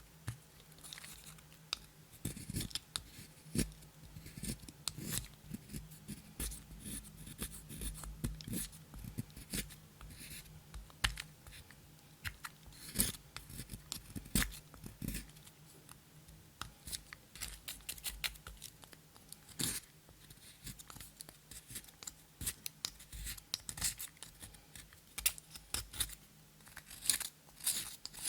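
Slime being worked by hand, with a dense, irregular run of sharp sticky clicks and crackles.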